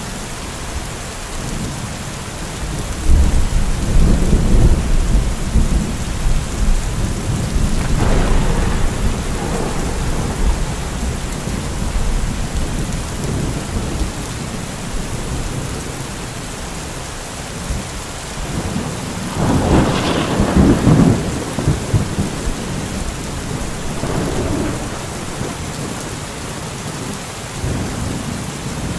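Steady rainfall with rolling thunder: a long low rumble from about three seconds in, and a sharper, louder peal of thunder about twenty seconds in, fading to softer rumbles near the end.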